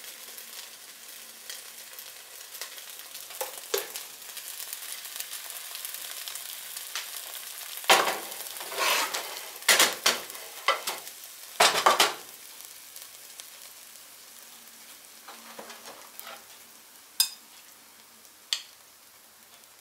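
Fried rice sizzling faintly in a hot pot while a slotted spatula scoops and scrapes it out, with a run of loud scrapes and knocks against the pot in the middle. Near the end, two sharp clinks as a spoon slides a fried egg off a glass plate.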